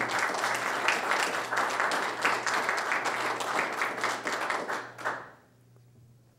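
Audience applauding, many hands clapping at once; the applause dies away about five seconds in.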